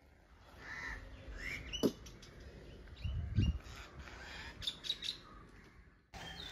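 Birds chirping in short calls scattered through the background, with a sharp click about two seconds in and a dull low thump a little after three seconds.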